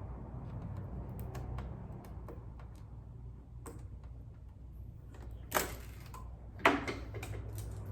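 Packing tape being peeled off a new sewing machine, with light clicks and handling taps throughout. There are two louder sharp rips, about two-thirds of the way through and again a second later.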